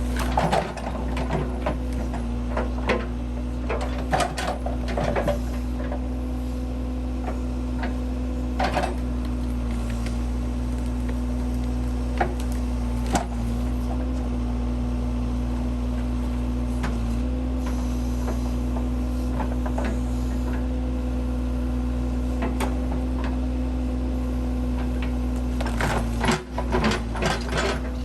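Case 580C backhoe engine running at a steady idle, with scattered clicks and knocks over it and a cluster of them near the end.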